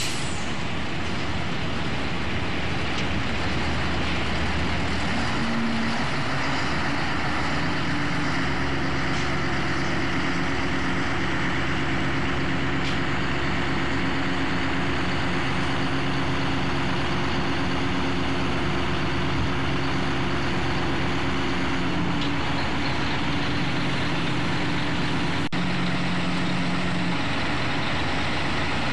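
An engine running steadily under a loud, even rushing noise; its low hum shifts in pitch a few times.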